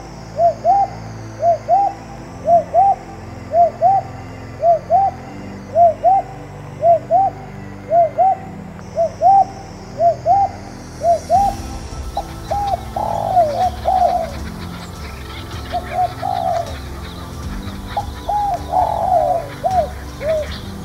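Doves cooing: short rising-and-falling coos in quick pairs, repeated steadily about once a second. Around halfway through, the coos become longer and more irregular over a rougher background hiss.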